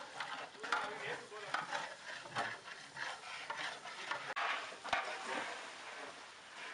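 A metal ladle stirring and scraping in a large pot of biryani, in a run of irregular strokes.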